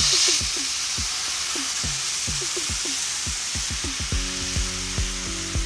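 Stock poured into a hot frying pan of caramelized onions and flour, sizzling sharply as it first hits the pan, then sizzling steadily. Background music with a low beat runs under it, with sustained chords coming in about four seconds in.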